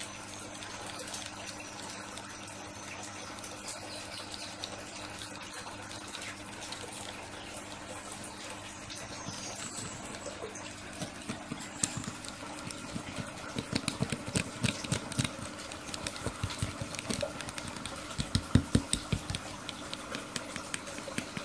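Steady trickle of water over a low, even hum. From about ten seconds in there is a run of small clicks and knocks, most frequent in the second half.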